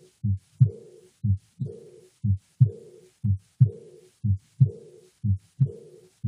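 Recorded heart sounds of aortic regurgitation, about one beat a second: each beat is a pair of low thumps, the first and second heart sounds, and the second is followed by a fading, blowing diastolic murmur.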